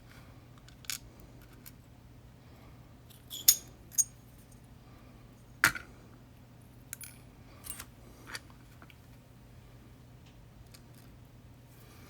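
Small metal parts of a disassembled Yale 2000 Plus lock cylinder, its pins and sliders, clicking and clinking as they are handled and set down: scattered single clicks, the loudest about three and a half and five and a half seconds in.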